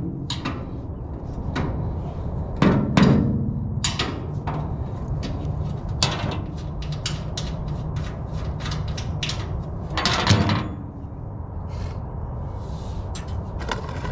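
Hands and tools handling metal fittings on a fuel transfer tank: scattered clicks and knocks, with a quicker run of small clicks in the middle and two louder clunks, about three seconds in and about ten seconds in. A steady low hum runs underneath.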